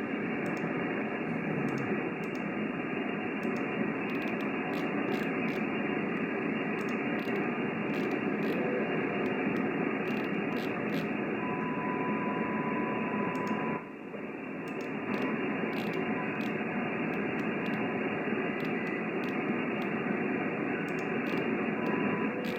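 Amateur radio receiver's background hiss from a quiet band, heard through the rig's narrow audio passband. A steady whistle tone comes in for about two seconds midway, and the hiss dips briefly just after it.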